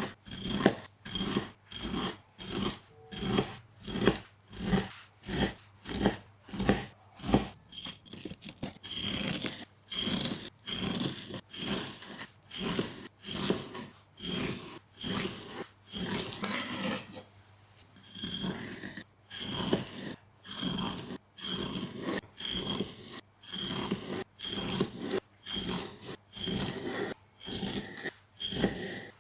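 Rhythmic rasping, scraping strokes, about two a second, with a short pause about halfway through.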